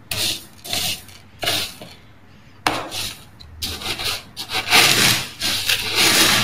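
Plastic litter scoop raking through tofu cat litter pellets in a plastic tray, a rustling scrape in repeated irregular strokes, the strongest in the last two seconds.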